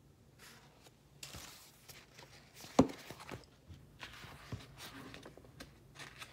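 Paper pages of a picture book rustling as they are turned and the book is handled, with small clicks and one sharp knock about three seconds in.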